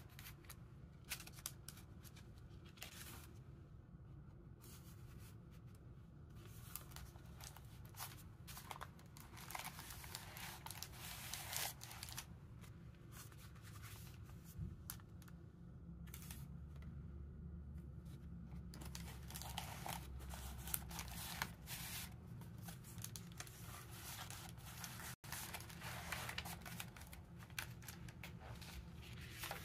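Paper pages and tucked-in tags of a handmade junk journal rustling and crinkling as they are turned and handled, in short scattered rustles over a faint steady low hum.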